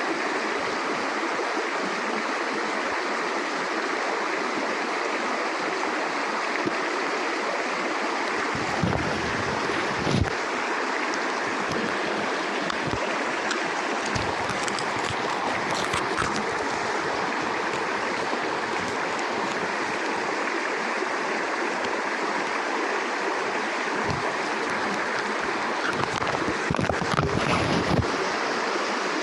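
Mountain stream rushing steadily over rocks, with a few brief low bumps on the microphone, about nine seconds in and again near the end.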